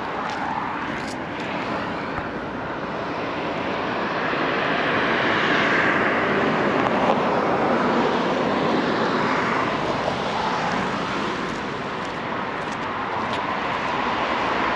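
Steady rush of passing vehicle noise that swells to its loudest about six to nine seconds in, eases off, then rises again near the end.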